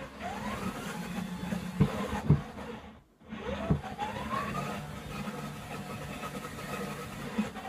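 Two 12 V Servocity HD planetary gear motors driving a tank-style robot, whining as they spin up with a rising pitch twice and then running steady, with a brief stop about three seconds in. A few sharp knocks around two seconds in as the unloaded robot jolts, which it does more without weight on the frame.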